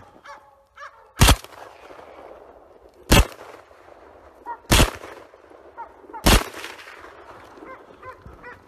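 Four gunshots from a hunting gun, fired in succession about one and a half to two seconds apart.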